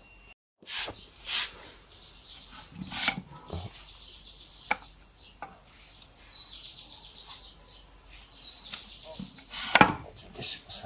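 Scattered knocks and clinks of metal parts being handled on a mortising machine's cast base during assembly, with one sharper, louder knock near the end. Birds chirp in the background.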